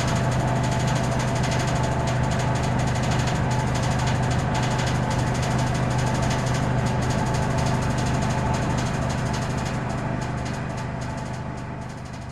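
Laimet HS-21 wood chipper running steadily under power, a strong hum with a dense crackle of clicks over it, easing off and getting quieter over the last few seconds.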